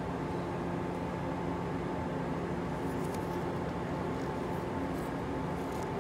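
Steady running noise inside a moving train carriage: a low rumble with a steady hum. A few faint light ticks about three and five seconds in.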